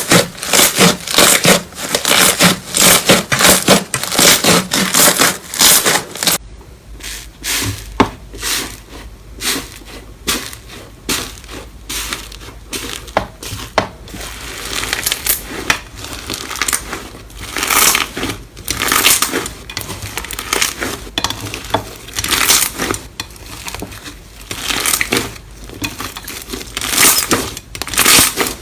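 Slime being squeezed and pressed by hand, crackling and crunching densely at first. About six seconds in, the sound changes abruptly: a low hum comes in underneath and the crackling turns sparser, coming in bursts.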